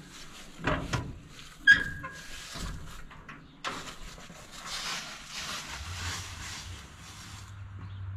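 Metal clanks and rattles of garden-tractor seat hardware being handled, with one sharp clank that rings briefly about two seconds in. A rustling hiss follows, and a low steady hum comes in near the end.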